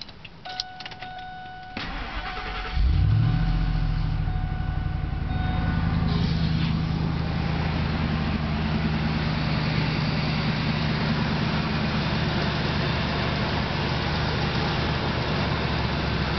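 2002 Ford SVT Lightning's supercharged 5.4-litre V8 being started: a few clicks, then it cranks and catches about three seconds in and settles into a steady idle.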